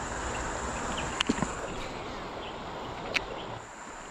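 Steady rush of flowing river water with a thin, high insect drone over it, broken by a few brief sharp clicks about a second in and again near three seconds.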